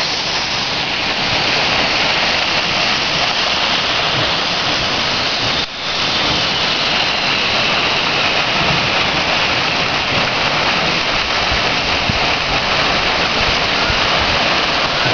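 Waterfall roaring, a steady, loud rush of falling water that dips briefly about six seconds in.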